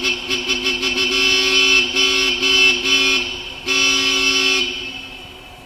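A two-tone vehicle horn sounding inside a road tunnel, honked repeatedly in short toots and longer blasts with brief gaps between them. The honking stops near the end.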